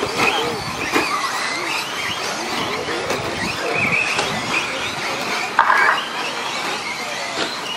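Electric brushless motors of several RC short course trucks, among them a Losi SCTE with a 3800kv motor, whining as they race, their pitch rising and falling with the throttle. A brief harsh buzz stands out about two-thirds of the way through.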